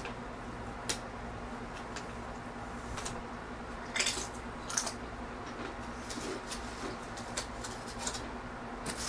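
Close-miked eating: a tortilla chip with guacamole crunched and chewed, with sharp crackles about four and five seconds in and lighter chewing clicks after, over a steady low hum.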